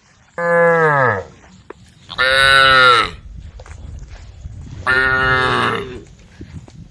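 Cows mooing: three loud calls of about a second each, the first falling in pitch as it ends.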